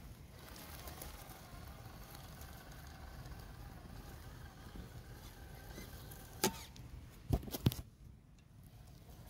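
Faint whine from a radio-controlled scale crawler's small electric motor, wavering in pitch, with three sharp knocks about six and a half to seven and a half seconds in.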